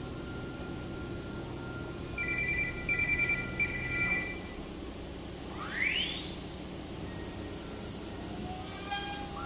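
Oryx GT5-2030Li-2.2 ATC CNC router running. Its motors whine in short stepped tones as the gantry moves, then a whine rises steeply from about halfway and levels off high near the end, as the ATC spindle motor spins up to speed.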